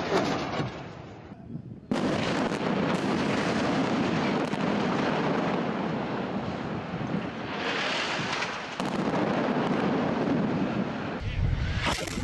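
Rocket fire and airstrike explosions: a loud, steady din that starts suddenly about two seconds in, then a deep blast rumble with a sharp crack near the end.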